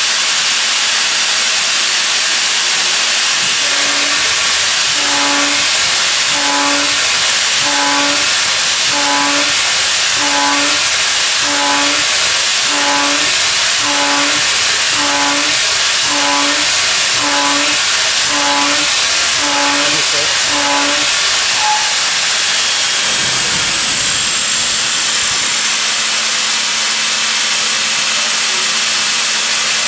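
Milling machine running a high feed milling cut: a loud steady hiss throughout. From a few seconds in until about 21 seconds in, a pitched tone repeats about every second and a half. After that a faint steady hum sits under the hiss.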